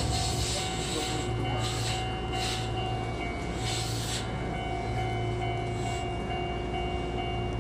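Chichibu Railway 5000 series electric train at the station, giving a steady electrical hum with a pulsing low rumble and several short hisses in the first few seconds.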